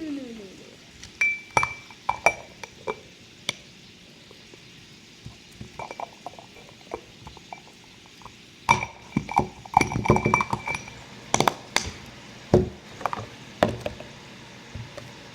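Slime containers being handled, clinking and knocking together in scattered bursts of sharp clicks, a few with a short ringing tone; a busy run of clatter comes about nine seconds in.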